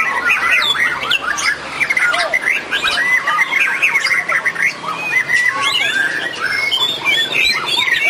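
White-rumped shamas (murai batu) singing against one another at a songbird contest: a dense, unbroken stream of quick rising and falling whistles, many notes overlapping at once.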